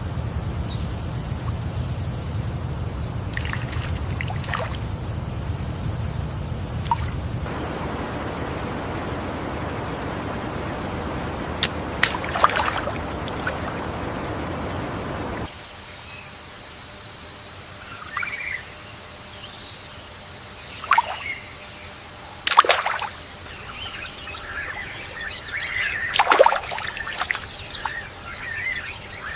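Rainforest ambience in two parts. First a steady rush of running water, with a steady high whine over it for the opening stretch. About halfway this cuts to a quieter forest where birds give several sharp downward-sliding calls and then a run of chirps near the end.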